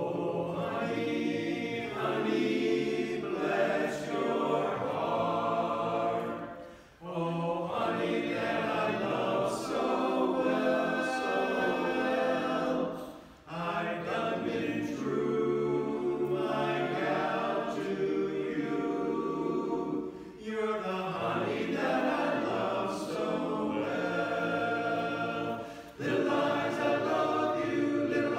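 Barbershop chorus singing a cappella in close four-part harmony, with several short breaks between phrases.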